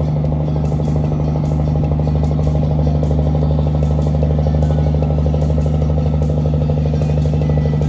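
Large riverboat's diesel engine running steadily under way, a deep even hum with a fast regular throb.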